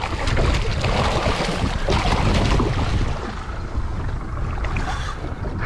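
A hooked Atlantic bonito thrashing and splashing at the water's surface, loudest in the first couple of seconds, with wind rumbling on the microphone.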